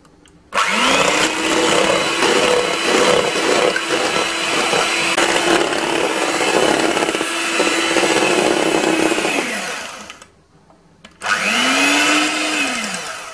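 Electric hand mixer with its beaters whipping cream in a stainless steel bowl. The motor spins up with a rising whine about half a second in and runs steadily for about nine seconds, then winds down and stops. It runs again for a second or two near the end. The cream is whipped until it stands up firm.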